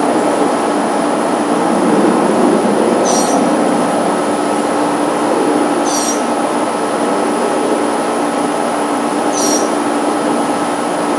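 Aircraft engine noise overhead: a loud, steady rushing noise with a steady whine over it.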